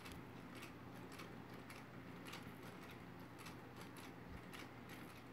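Near silence: room tone with a faint steady low hum and a few very faint ticks.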